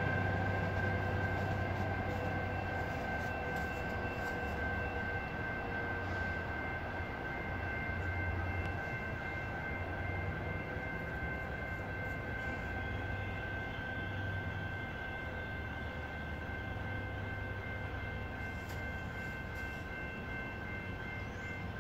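Commuter train with a diesel locomotive pulling away, its low rumble slowly fading, with a steady high-pitched whine held throughout.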